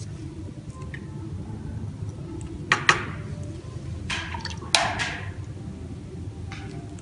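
A few short, sharp clicks and knocks over a steady low rumble: two close together about three seconds in, two or three more between four and five seconds, and a fainter one near the end.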